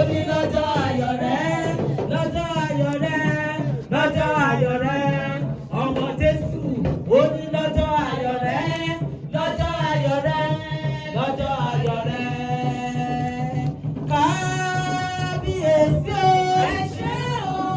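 Singing: a single voice carrying a melody in long, bending, held notes over a steady low drone.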